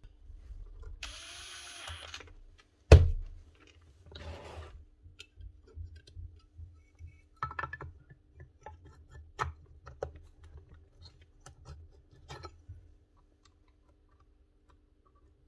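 Handling noise from a magnetic drill's plastic housing and wiring being fitted back together: a brief rustle, one sharp knock about three seconds in, then scattered light clicks and taps that stop a couple of seconds before the end.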